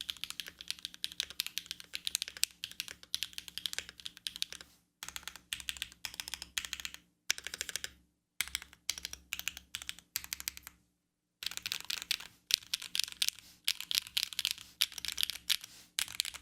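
Typing on a KBDfans Margo custom mechanical keyboard: fast runs of crisp keystroke clacks, broken by a few short silent gaps.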